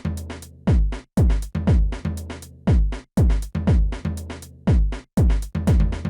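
Electronic background music with a deep, pitch-dropping kick drum and sharp hi-hat clicks in a steady beat.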